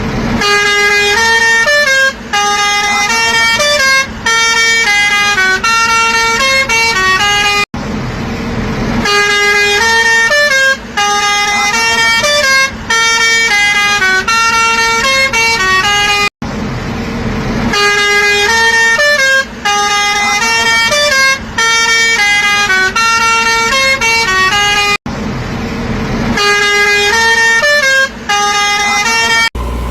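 A musical horn playing a short stepped tune of horn-like notes. The phrase repeats in a loop about every eight and a half seconds, with short breaks between notes.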